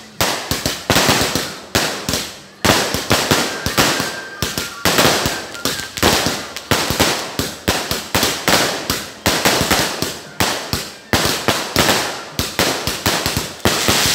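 Aerial fireworks going off in a rapid, unbroken barrage of sharp bangs and crackles, two or three big bangs a second amid many smaller cracks, as shells launch from the ground and burst overhead.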